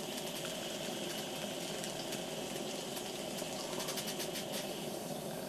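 Philcraft Penny Engine, a miniature toy steam engine, running on steam with a steady hiss and fast, light ticking. The steam is saturated, and the water it carries makes an engine this small run poorly and stall.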